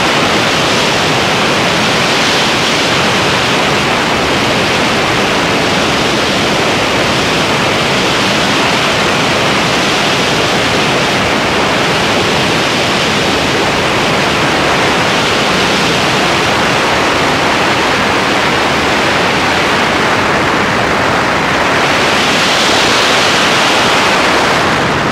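Loud, steady wind rush of the airflow over a biplane's wing in flight, blasting a wing-mounted camera's microphone; it swells a little near the end.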